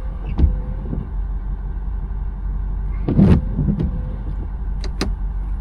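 Plow pickup truck's engine running, a steady low rumble heard from inside the cab, with a few brief knocks and clicks.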